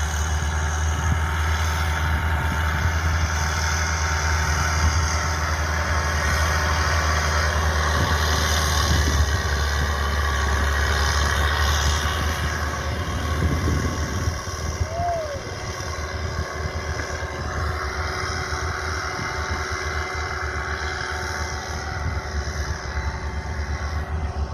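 Heavy farm-machinery engine running steadily with a deep hum, easing a little about halfway through. A short squeak rises and falls once about two-thirds of the way in.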